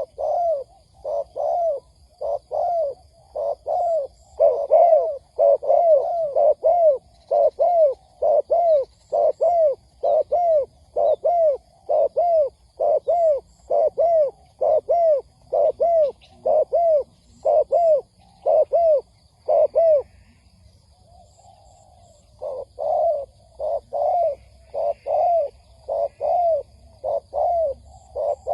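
Spotted dove giving a fast run of short, arched coos, about one and a half a second, with a two-second pause about twenty seconds in before the run resumes. This is a decoy bird's coo, the kind used to lure wild doves.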